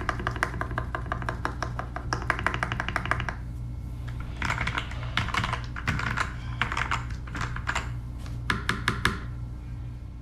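Mechanical keyboard being typed on: a GK61XS in a case with no foam, fitted with lubed and filmed KS-3 Gateron Yellow linear switches and DSA keycaps, giving clacky keystrokes. Fast, steady typing for about three seconds, then a short lull and several quick bursts of keys, stopping about a second before the end.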